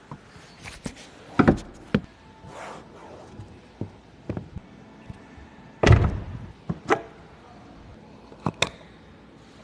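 Car doors being worked: clicks of handles and latches, and two heavy thunks of a door shutting, about a second and a half in and again about six seconds in.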